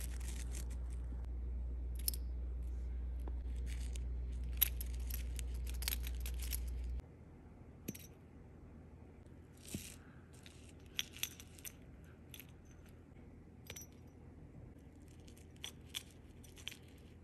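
Faint, scattered clicks and clinks of toy horse figures and a miniature metal feed bucket being handled and set down. A low steady hum underneath stops abruptly about seven seconds in.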